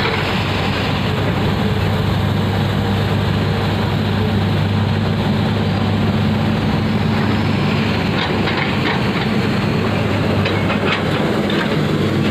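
Heavy diesel engine of an Eicher tipper truck running steadily with its dump body raised to unload boulders: a loud, continuous low hum under a broad rumble, with a few faint clicks about two-thirds of the way in.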